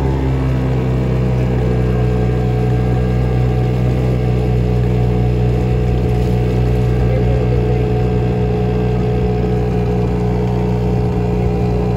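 Motorboat engine running steadily at an even speed.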